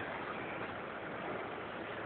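Steady background noise, an even hiss with no distinct knocks, calls or other events.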